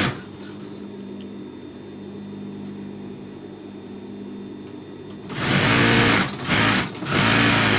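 Industrial sewing machine stitching a folded hem in satin sheet fabric. A low steady hum for about five seconds, then three bursts of sewing in quick succession, the last one the longest.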